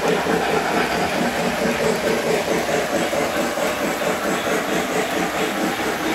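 Several Lionel model trains running at once on the layout's track: a steady rumble of motors and wheels, with a fast, even pulsing.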